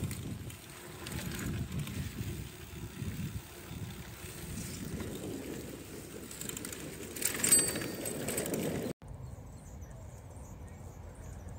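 Bicycle ride recorded on a phone: low, uneven rumble of tyres on a dirt path with wind on the microphone. A brief louder hiss with a short high squeak comes at about 7.5 s. The sound cuts abruptly at about 9 s to a quieter, steady outdoor background.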